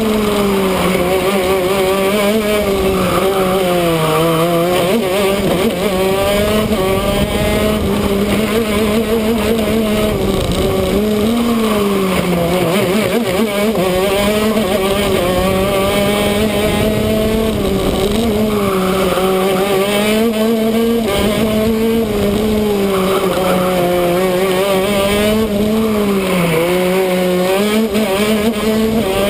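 A 125cc two-stroke shifter kart engine running hard on track. Its note holds high on the straights and dips, then climbs again, through the braking zones and corners: a few seconds in, about 13 seconds in, and near the end.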